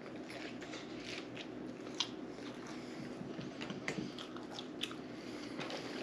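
A person chewing and biting into a bacon cheeseburger: a run of small wet mouth clicks and smacks, the sharpest about two seconds in.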